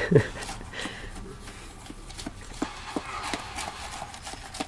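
A straw jabbing and scraping in a plastic cup of slush: a string of light, irregular clicks and taps, mostly in the second half.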